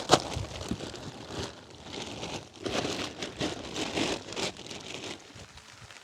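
Plastic tarp crinkling and rustling in irregular bursts as it is handled and sticks are laid on its edge, with a sharp knock at the start; it dies down after about five seconds.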